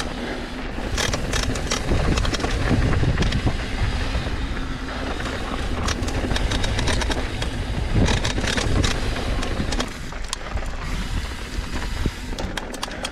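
Mountain bike descending a rocky dirt trail: constant rumble of wind and tyres on dirt with frequent clattering knocks from bumps, the hardest about eight seconds in.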